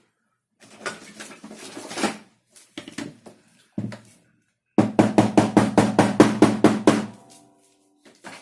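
A small electric motor runs in short bursts, then drives a mechanism through a fast, even run of sharp clacks, about six a second, for a couple of seconds. It trails off in a fading whine.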